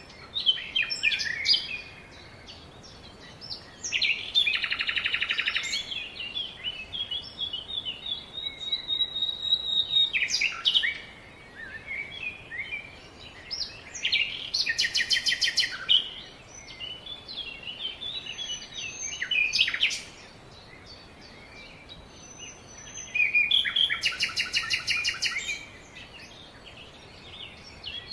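Several songbirds singing and calling in a forest, with many short chirps and whistles. A loud rapid trill of about two seconds comes three times: about four seconds in, in the middle, and near the end.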